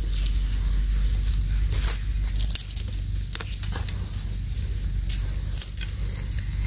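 Dry, burnt bamboo stalks and leaves rustling and crackling as a hand pushes through them, with scattered small snaps, over a steady low rumble.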